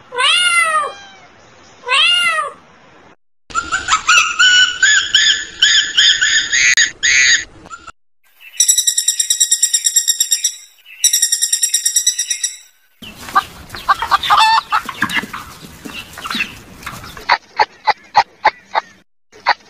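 A string of separate animal calls. A domestic cat meows three times, then a few seconds of higher, rising calls follow. Two rapid runs of repeated high notes, typical of a pileated woodpecker's call, come next, and short sharp chirps at an even pace close it.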